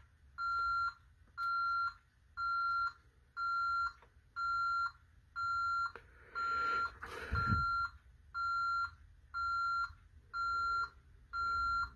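Honeywell Vista 15P alarm keypad sounding its exit-delay beeps after being armed to away: a steady high beep about once a second, each about half a second long, counting down until the system arms. A brief rustle and thump sounds about seven seconds in.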